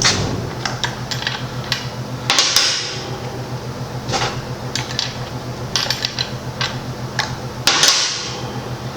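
Metal tool clicks and clinks from taking the spark plug out of a gas chainsaw with a wrench, with two longer, louder scrapes, a couple of seconds in and again near the end, over a steady low hum.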